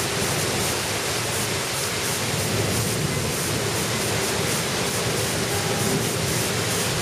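Torrential rain in a black-signal rainstorm, pouring down as a steady, dense hiss.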